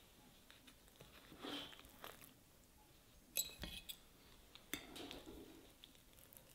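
Faint, sparse handling sounds: soft rustles, and two sharp clicks about three and a half and about five seconds in, like small objects or utensils being set down or knocked.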